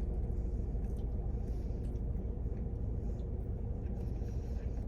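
Steady low rumble of a car heard from inside the cabin, with a faint steady hum over it.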